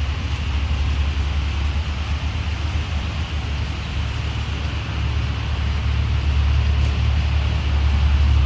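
Steady low engine rumble, running without a break.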